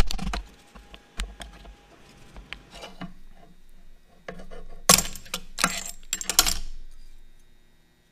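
Wooden mallet knocking on a knife's wooden handle at the very start, then scattered light taps. About five seconds in, three loud bursts of metal clatter and rattle as the steel knife and hand tools are handled on the workbench.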